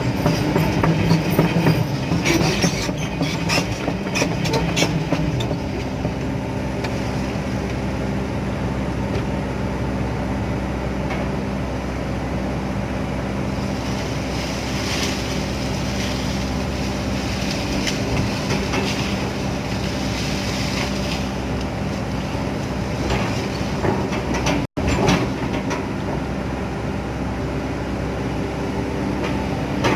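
Excavator's diesel engine running steadily, with bursts of metallic clattering and squeaking from the machine's steel parts twice, early and again in the middle.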